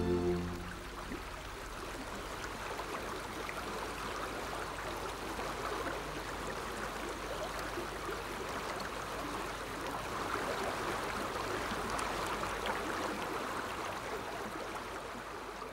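Film score music ends within the first second, giving way to a steady sound of running, babbling water with fine crackles.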